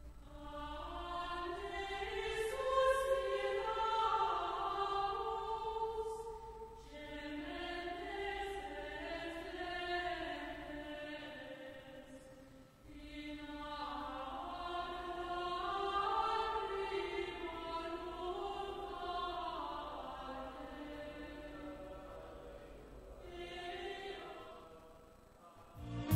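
Church congregation singing a hymn together, in long sung phrases with short pauses between them.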